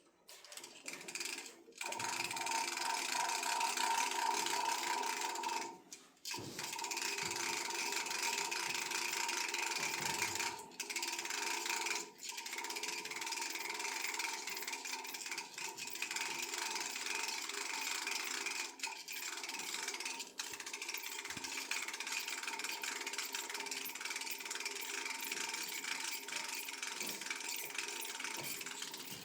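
Geared hand winder being cranked to wind a rubber-band helicopter's rubber motor: a steady mechanical gear whirr that pauses briefly a few times.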